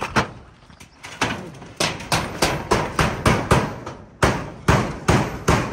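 Hammer blows on a corrugated metal roofing sheet, fastening it down. The blows come in a rapid run of sharp, ringing strikes, about four a second after a slower start.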